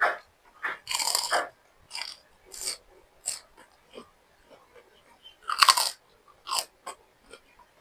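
A person biting into and chewing crunchy food: a series of irregular crunches, the loudest about a second in and again near six seconds in, with quieter chewing between.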